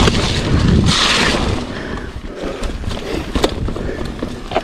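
Mountain bike riding down a wet dirt trail: wind rushing over the camera microphone and tyres rolling on mud, loudest in the first second or so, with sharp clacks and rattles from the bike over bumps.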